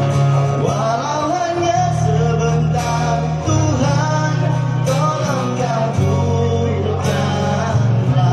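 Music: a song with guitar and a singing voice over a sustained bass line.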